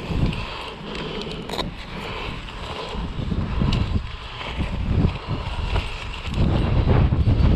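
Wind buffeting the microphone in uneven gusts, strongest near the end, with handling noise from a fabric kite bar bag being unrolled and its control bar lifted out, including one short sharp noise about a second and a half in.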